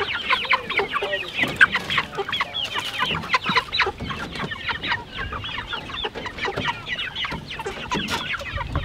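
A crowd of chickens packed in a wood-and-wire crate, clucking and squawking continuously in many short, overlapping calls.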